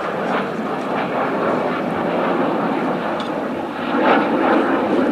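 Fixed-wing aircraft engine noise: a loud, steady rush that swells about four seconds in, with scattered light knocks.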